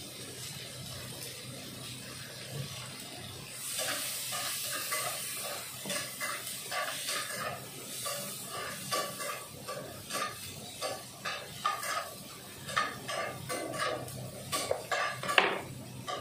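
Vegetables stir-frying in hot oil in a pan: sizzling picks up about four seconds in, with a cooking utensil scraping and clinking against the pan in quick, irregular strokes.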